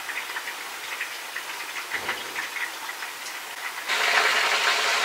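Kitchen cooking noise: light crackling over a soft hiss, then about four seconds in a louder, steady rushing hiss starts abruptly.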